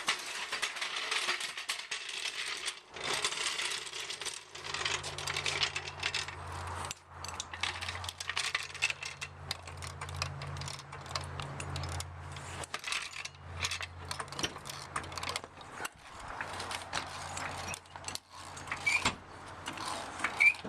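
Floor jack being rolled out and pumped to lift a car: metal clanking and ratcheting clicks from its casters, handle and lifting arm. A low steady hum runs through the middle.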